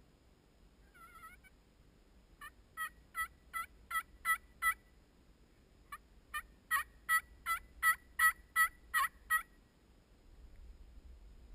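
Turkey yelps: a faint yelp about a second in, then a run of about seven evenly spaced yelps and, after a short pause, a louder run of about ten, roughly three a second.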